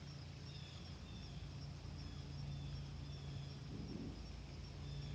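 Faint outdoor ambience: insects chirping in short, evenly repeated calls over a low steady hum and light hiss.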